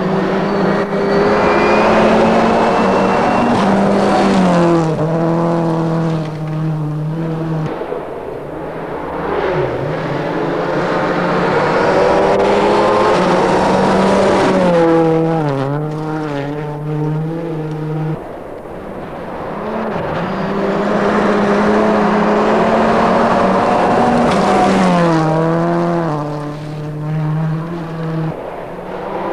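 World Rally Cars passing one after another on a gravel stage, three in turn with short dips between them. Each car's turbocharged four-cylinder engine runs hard, its pitch stepping down through a run of gear changes as it nears and goes by.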